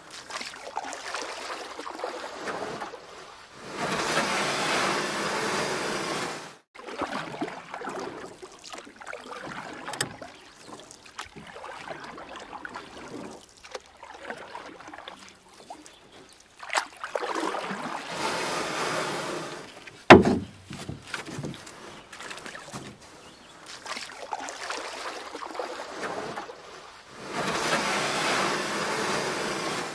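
Kayak paddling on a slow river: water splashing and running off the paddle, swelling in three louder bouts of a few seconds each, with quieter lapping between. One sharp knock about twenty seconds in.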